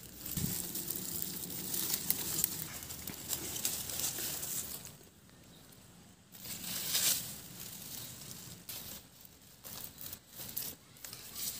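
Cucumber vines, leaves and dry grass stems rustling and crackling in irregular bursts as they are brushed through by hand, with a quieter pause about halfway through.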